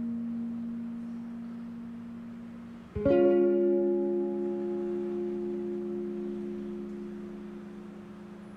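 Hollow-body electric guitar played clean: a chord rings and fades, then a new chord is strummed about three seconds in and left to ring out slowly.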